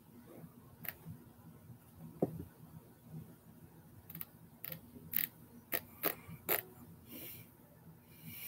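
Faint, spaced-out clicks at a computer while files are browsed: a duller knock about two seconds in, then a run of sharp single clicks about half a second apart in the middle.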